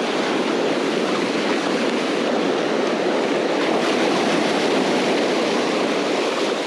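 Sand flea rake dragged through the wash of the surf, a steady rush of water and wet sand through the rake that swells slightly in the middle.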